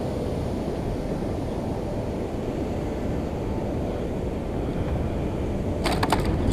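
Steady low rumble of wind buffeting the microphone. A quick cluster of sharp clicks or rattles comes near the end.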